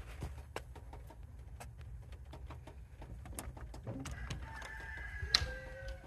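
Clicks and taps of a sliding glass patio door's latch and handle as it is unlatched and opened. About four seconds in comes a drawn-out squealing tone lasting nearly two seconds, with one sharp click in it.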